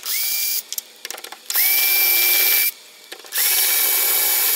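Electric screwdriver backing out the screws of a doorknob and latch plate: three runs of a high motor whine, each starting with a quick rise in pitch, with small clicks of the screws and bit in between.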